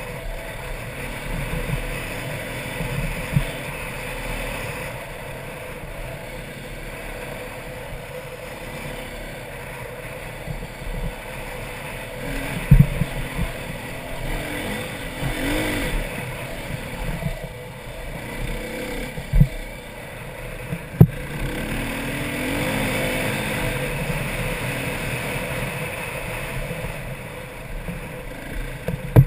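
Dirt bike engine running and revving up and down as it rides a rough trail, heard from a helmet-mounted camera with wind rushing over the microphone. Three sharp knocks stand out partway through.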